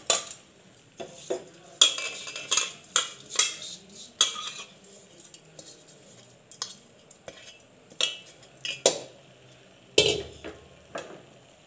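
Perforated steel ladle scraping and knocking against the inside of a pressure cooker as rice is stirred into cooked vegetables: irregular scrapes and clinks, with a few louder knocks.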